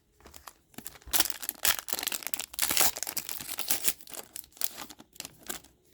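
A hockey card pack's wrapper being torn open and crinkled: a dense crackling that runs about three seconds, then trails off into a few lighter rustles.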